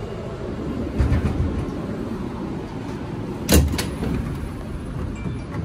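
Inside a Kawasaki R160B subway car: a steady low rumble, with a sharp knock about three and a half seconds in and a smaller one about a second in.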